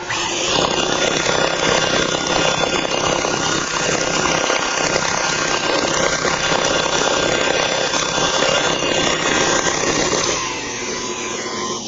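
Electric stand mixer running steadily with its paddle attachment, whipping pumpkin roll cake batter to work air into it; it winds down near the end.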